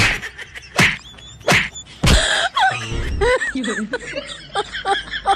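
Open-hand slaps and whacks on a man's head and back, about four sharp hits in the first two seconds, each with a yelp or cry. After that come shouting voices.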